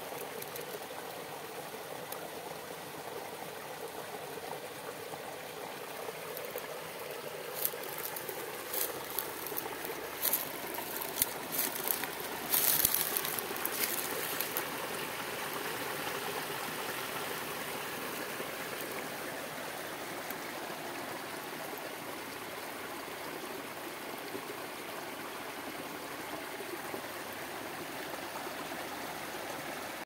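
A small stream of cloudy, foamy wastewater running and trickling over fallen branches and debris. A cluster of sharp crackles comes about halfway through.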